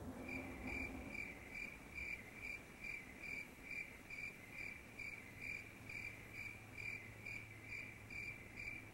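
Cricket chirping, an even chirp repeated about twice a second: the stock 'crickets' cue for an awkward, empty silence while nothing comes to mind.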